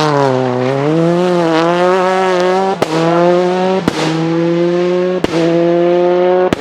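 Škoda Octavia WRC's turbocharged four-cylinder rally engine revving. Its pitch dips, climbs and then holds steady, with four sharp anti-lag bangs in the second half, about one a second.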